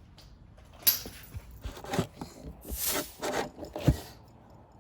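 Handling noise: a few sharp knocks with scraping between them. The knocks come about a second in, at about two seconds and just before four seconds.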